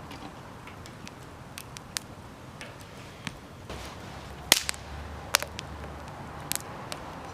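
Scattered sharp cracks and snaps of wood at uneven intervals, the loudest about four and a half seconds in, with a low rumble underneath for a couple of seconds in the middle.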